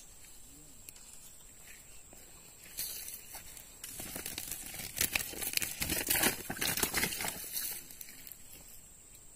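Crinkling and rustling handling noise with many small clicks, starting about three seconds in and dying away about eight seconds in.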